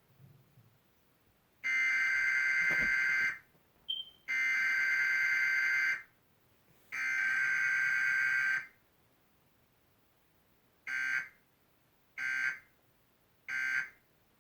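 Emergency Alert System data tones from a TV speaker: three long, harsh, buzzy bursts, then three short bursts near the end. This is the SAME header code and the end-of-message code of a broadcast emergency alert.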